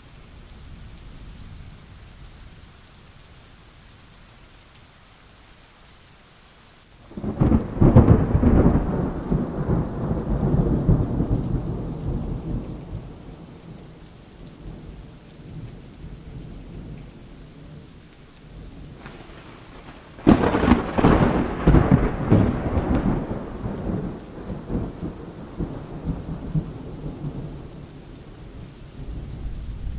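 Thunderstorm recording: steady rain with thunder. A sudden loud thunderclap comes about a quarter of the way in and another about two-thirds of the way in, each rumbling away over several seconds, with a softer rumble near the end.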